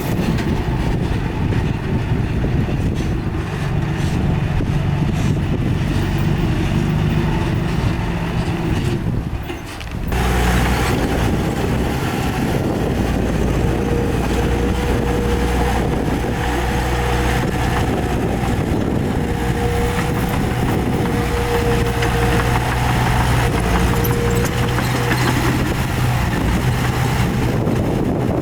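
Heavy diesel engines of earthmoving machinery running steadily. About nine seconds in they briefly drop away, and after that a thin steady whine sits over the engine through the middle part.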